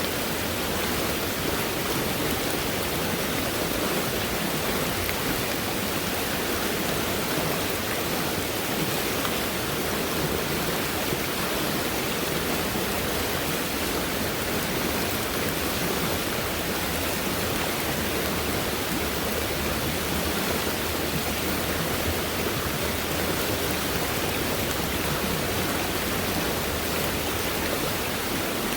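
Fast-moving stream swollen by heavy rainfall, its water rushing in a steady, unbroken hiss.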